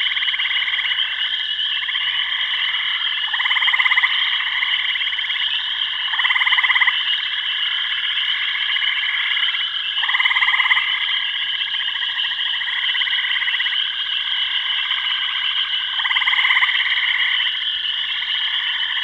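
A dense chorus of many frogs calling together: a steady, rapidly pulsing trill that swells louder every few seconds.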